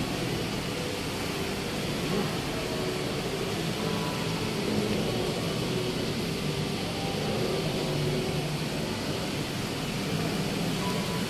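Steady background hum of a large shopping mall's interior, air-conditioning noise with faint far-off voices.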